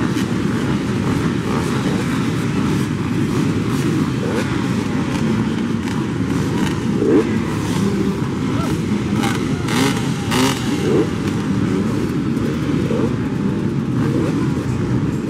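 Many dirt bike engines running at once, a dense steady drone of overlapping engines with individual bikes revving up now and then.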